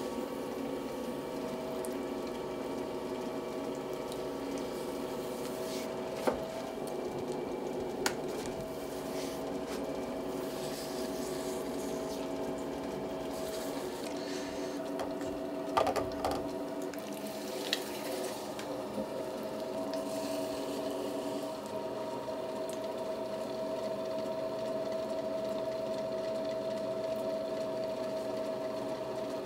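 Electric potter's wheel motor running with a steady whirring hum, with a few light knocks from clay and tools.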